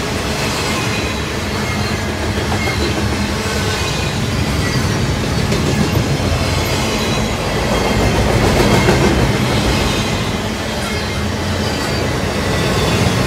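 Double-stack container cars of a freight train rolling past close by: a steady rumble and clatter of steel wheels on the rails, swelling a little about eight seconds in, with a few brief faint high squeals.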